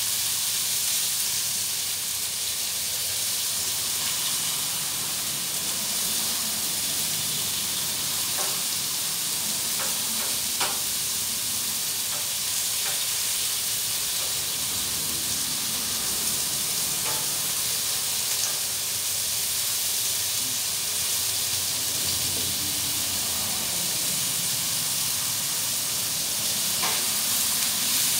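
Chopped chicken and sausage sizzling steadily on a Blackstone flat-top griddle, with a few sharp clicks of a spatula on the griddle plate as the meat is turned and chopped.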